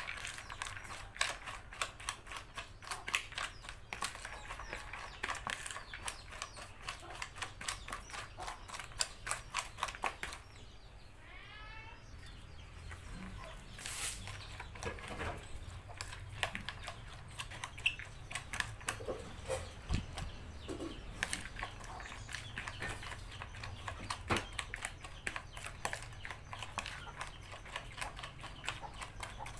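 A metal spoon tossing and scraping shredded salad in a plastic bowl, making rapid, irregular clicks and taps against the bowl. About eleven seconds in the clicking stops briefly, and a short pitched sound slides down in pitch.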